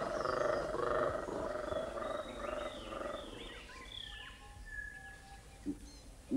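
Black-and-white colobus monkeys giving the males' dawn roar: a rhythmic run of deep, pulsed croaks that fades out after about two and a half seconds. High chirping calls and a brief whistle follow.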